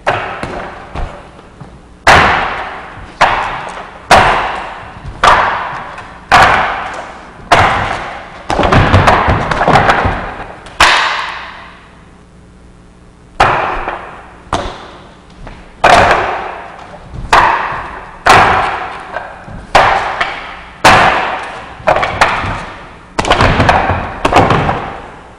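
Wooden dummy (mook jong) struck by forearms and hands through a Wing Chun form: sharp wooden knocks about one a second, each with an echoing tail. A quicker run of knocks comes about nine to eleven seconds in, then a short pause.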